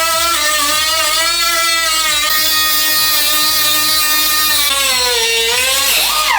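High-speed grinder with a cutting wheel running and cutting through the sheet-metal rear fender, a steady loud whine that dips in pitch as the wheel bites. Near the end it is released and starts to spin down with a falling whine.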